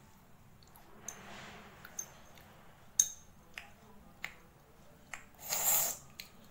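Metal spoon clinking against a glass bowl of rasgullas a few times, the sharpest clink about three seconds in, with a short rushing noise near the end.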